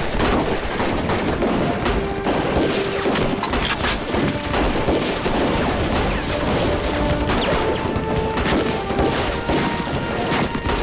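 Battle gunfire: many small arms firing in rapid, continuous volleys, the shots crowding one on another.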